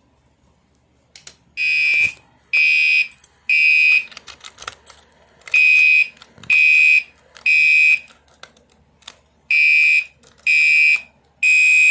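Gentex fire alarm horn sounding the temporal-three evacuation pattern: three loud, high-pitched beeps, then a pause, repeated three times, starting about a second and a half in. Faint clicks come between the first two groups.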